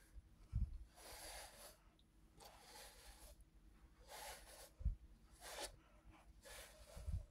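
Grooming brush stroking through a cat's fur, a faint scratchy brushing about once a second. Three brief low thumps come in among the strokes.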